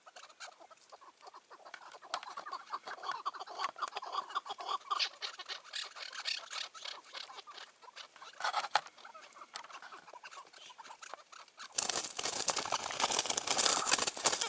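Chukar partridge calling in a fast run of short clucking notes that grows louder from about two seconds in. Near the end comes a loud burst of wing-flapping as the bird thrashes on the ground, and it cuts off sharply.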